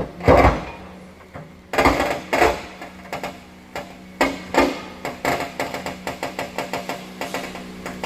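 Boulders being moved by heavy machinery: several heavy knocks and clanks of rock and metal in the first few seconds over a steady engine hum. From about halfway, a fast run of clacks, about five a second.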